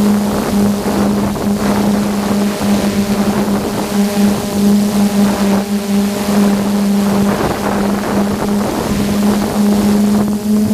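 Electric motors and propellers of an FPV aircraft in flight, heard through its onboard GoPro: a steady, even-pitched drone, with wind noise buffeting the microphone.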